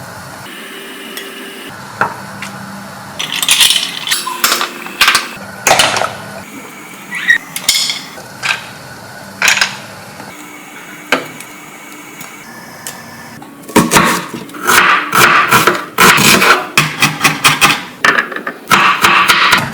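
Kitchen utensils knocking and scraping against pots, dishes and cutlery in irregular clatters: scattered at first, then a busy run of them over the last few seconds.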